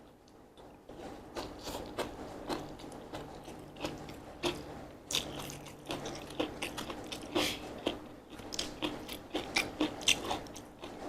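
Close-up mouth sounds of chewing a mouthful of Korean glass-noodle salad, with many short crisp crunches from crunchy vegetables such as green beans.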